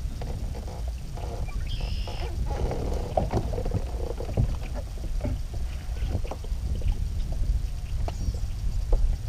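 A kayak being worked on the water: water splashing and lapping at the hull with scattered short knocks and clicks, over a steady low rumble.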